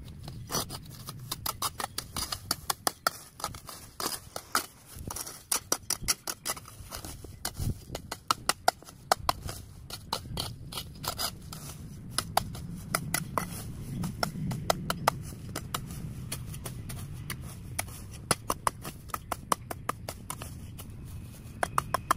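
Many sharp snipping clicks in quick, irregular succession, several a second, over a low steady rumble.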